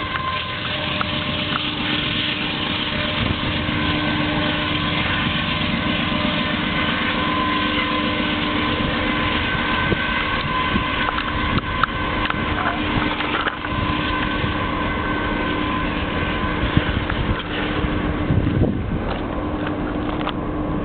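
Loaded coal train rolling past at high speed: a steady roar of steel wheels on rail with a constant low hum under it. Scattered clicks and knocks run through it, and the roar eases a little near the end.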